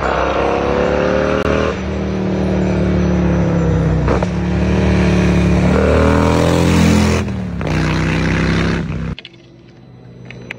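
Harley-Davidson Milwaukee-Eight V-twin through a 2-into-1 performance exhaust, accelerating hard with its pitch climbing and breaking at several gear changes. The loud engine sound cuts off suddenly about nine seconds in, and a much quieter engine sound follows.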